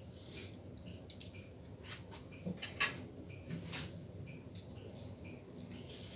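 A small kitchen knife clicking and scraping on a wooden cutting board as ripe bananas are peeled and cut: a few sharp clicks, the loudest a little under three seconds in. Behind it, a faint high tick repeats about twice a second.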